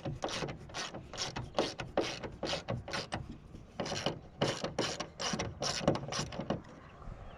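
Socket ratchet wrench clicking in short, repeated strokes, turning a bolt on a car's hood hinge bracket. The clicking stops near the end.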